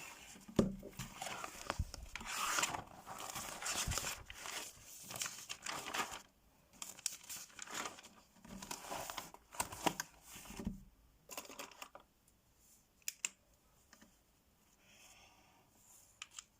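Crinkling and rustling, as of something being unwrapped or torn by hand, in repeated bursts for about twelve seconds with a few light knocks, then a few sharp clicks near the end.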